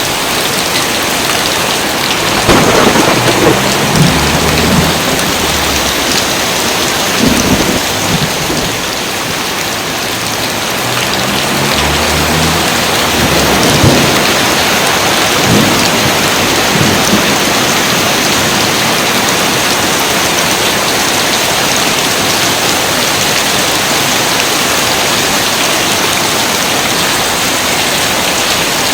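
Steady heavy rain with thunder rumbling low several times in the first half, from about two seconds in to eight seconds and again from twelve to seventeen seconds, then rain alone.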